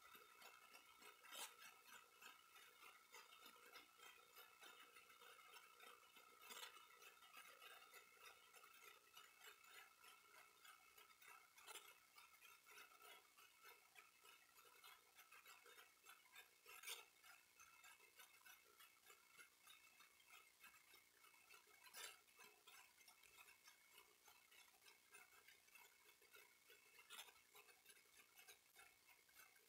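Near silence: faint room tone with a thin steady whine, broken by a faint click about every five seconds.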